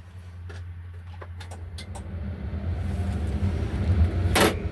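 The LiuGong 922F excavator's Cummins diesel engine is running with a steady low hum and grows steadily louder as it is throttled up. There are a few light clicks in the first two seconds and a short, sharp burst of noise near the end.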